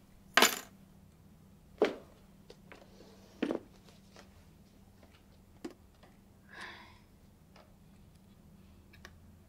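Three sharp knocks on a hard surface in a small room, a second or so apart, the first the loudest, then a few light clicks and a short soft rustle, over a faint steady hum.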